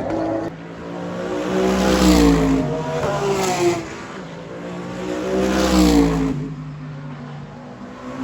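GT3 race cars passing at speed, two in turn about three and a half seconds apart. Each engine note swells to a peak and then falls in pitch as the car goes by.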